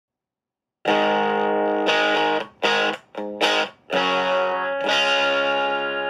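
Electric guitar chords played through a tiny Orange Crush Mini practice amp, picked up by a tablet's built-in microphone. The playing starts about a second in with held chords, breaks into a few short, choked chord stabs in the middle, then goes back to ringing chords.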